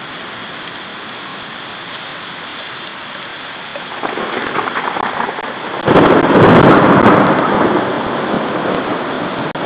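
Thunderstorm: steady rain, with thunder swelling about four seconds in and a loud clap of thunder about six seconds in that rumbles and slowly dies away.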